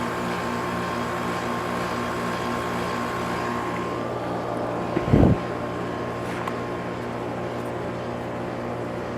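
Trane XE1000 heat pump outdoor unit running with a steady hum. About five seconds in there is one loud low thump as the unit kicks on, and after it the hum shifts and settles slightly quieter.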